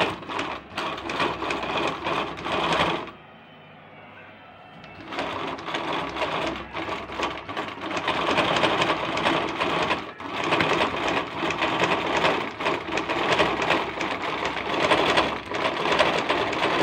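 Brother Pacesetter sewing machine running fast, sewing a decorative design stitch through fabric. It stops for about two seconds a few seconds in, then runs on, with a short break about halfway.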